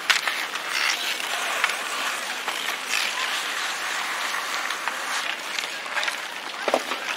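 Kids skating outdoors: a steady rush of skate wheels rolling over pavement, with scattered clicks and knocks.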